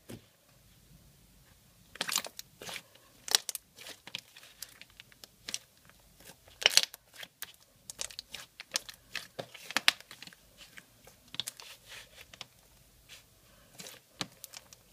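Hands squishing and pulling a batch of mixed slime, making irregular sticky clicks and pops that begin about two seconds in.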